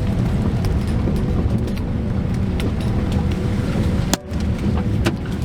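Car driving: a steady low road and engine rumble with scattered clicks and knocks, briefly dropping away about four seconds in.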